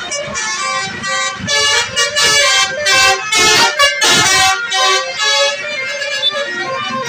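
Bus telolet horns (Basuri multi-tone musical horns) playing a tune of stepping notes. The loudest stretch runs from about one second in to about five and a half seconds in.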